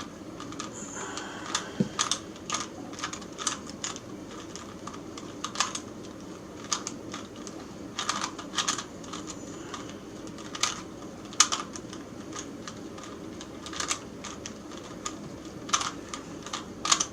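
Rubik's Cube being scrambled by hand: its plastic layers twisting with quick, irregular clicks and clacks that come in bunches with short pauses.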